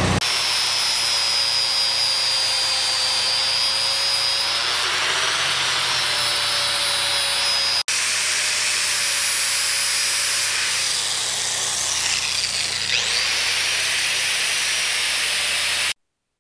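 Metalwork on the broken welds of a homemade log winch: a steady loud hiss with a faint high whine, broken by an edit cut about halfway through.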